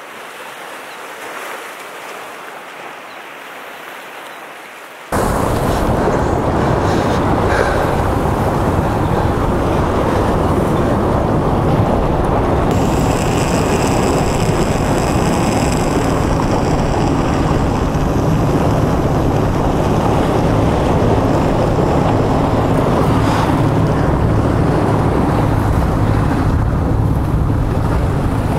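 Wind buffeting the microphone: a loud, steady rushing noise that starts suddenly about five seconds in, after a quieter rush of surf.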